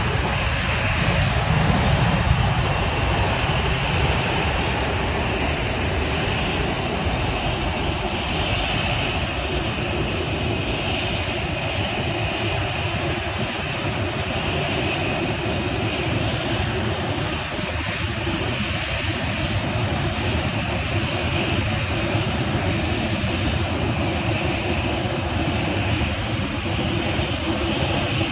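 Boeing 737's twin CFM56 turbofan engines running at taxi idle as the jet taxis slowly: a steady whine over a low rumble, the rumble slightly stronger in the first few seconds.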